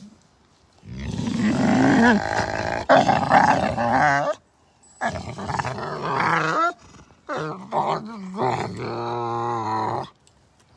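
A dog growling and grumbling in three long, loud bouts with wavering pitch; the last is a lower, steadier drawn-out groan.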